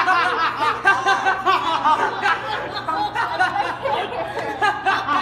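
Several teenagers' voices talking over one another and laughing, with no single clear speaker.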